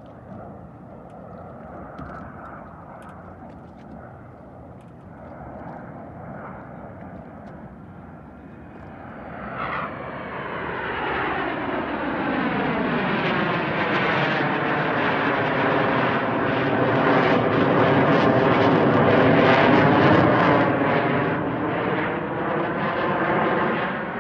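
Formation of six Northrop F-5E Tiger II jets passing overhead. The distant jet noise swells sharply about ten seconds in, with the sweeping, phasing whoosh of jets flying over, is loudest shortly before the end, then begins to fade.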